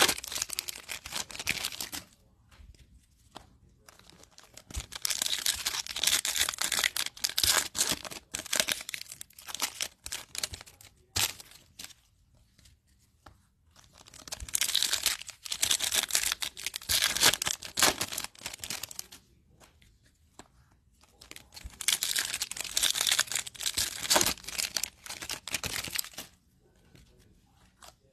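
Foil trading-card pack wrappers being torn open and crinkled, along with cards being flicked and slid against each other as they are sorted. The sound comes in four bursts of several seconds each, with quiet pauses between them.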